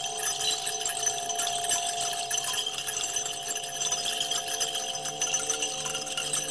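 Small hand-held bells shaken continuously in a steady shimmering jingle, over the sustained ringing tones of metal singing bowls at two pitches, the lower one wavering.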